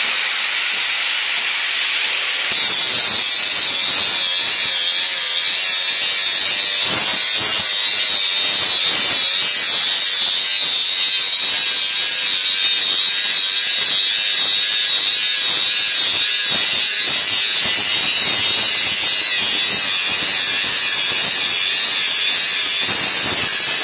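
Angle grinder running with a steady high whine. About two and a half seconds in, its disc bites into the steel of a kukri blade and the sound turns louder and rougher, a continuous grinding that wavers as the disc is worked along the blade.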